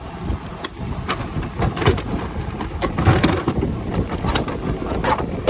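Tools and kit cases being handled in a toolbox drawer: a dozen or so scattered clicks and clunks over a low rumble of handling noise on the microphone.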